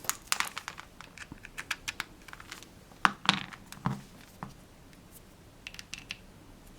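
Irregular light clicks and taps of handling a small portable music player and a wired audio connection while hooking up the speaker by aux cable, with a few louder knocks about three and four seconds in.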